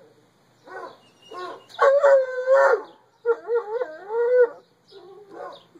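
Bloodhound howling and baying in excited greeting: a couple of short yowls, then two long wavering howls of about a second each, then a few shorter ones near the end.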